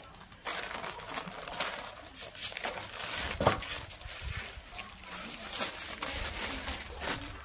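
Thin plastic bags crinkling and rustling as they are handled, in irregular crackles, with one sharper knock about three and a half seconds in.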